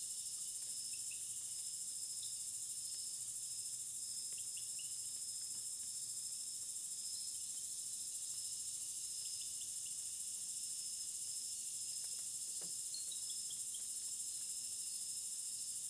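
Steady high-pitched insect chorus, with a few faint short chirps scattered through it.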